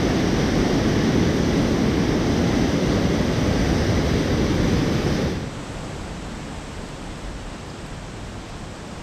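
Steady rush of a mountain torrent heard close up. About five seconds in it drops abruptly to a quieter, more distant rush of water.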